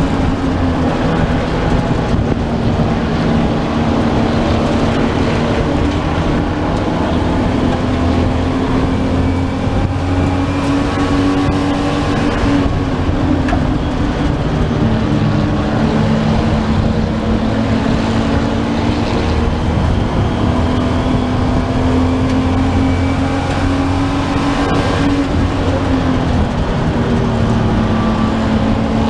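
V8 race car engine heard from inside the cabin, running hard at high revs. Its pitch dips and rises gently every several seconds as the revs change.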